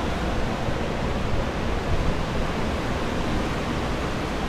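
Steady rushing air noise of flood-drying equipment running: floor air movers and dehumidifiers.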